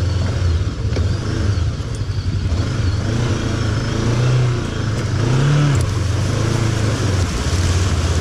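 Bristol Venturi 500 motorcycle engine running at low speed over river stones, with two short throttle swells about halfway through.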